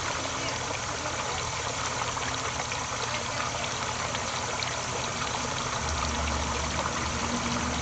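Steady trickling water. A low hum joins about six seconds in.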